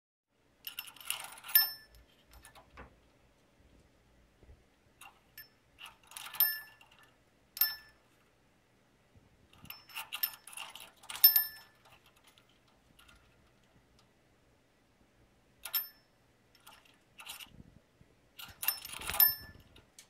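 A small metal cage-toy bell clinking and ringing as a cockatiel knocks it, in short irregular bursts with pauses between, each hit leaving a brief high ring.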